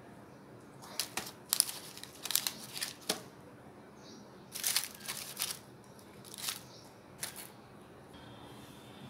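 Baking paper lining a tray crinkling and rustling in short bursts as halved English muffins are picked up and set back on it.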